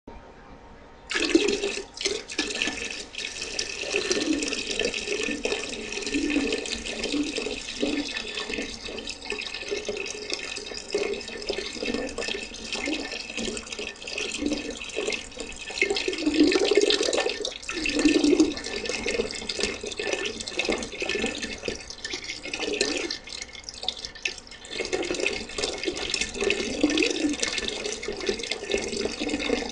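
A person urinating into the water of a toilet bowl: the stream starts about a second in and splashes steadily, its level rising and falling.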